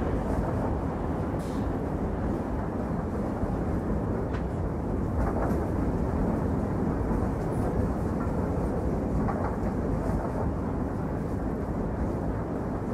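Steady rumble of a train in motion, with a few faint clicks.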